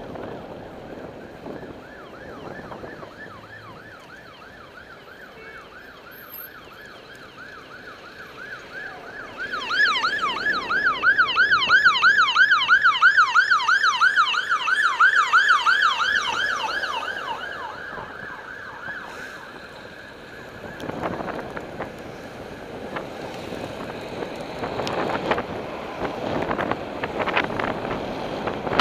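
Ambulance siren, a fast rising-and-falling wail about three times a second. It is faint at first, loud through the middle, then fades away. Wind on the microphone and passing traffic fill the rest.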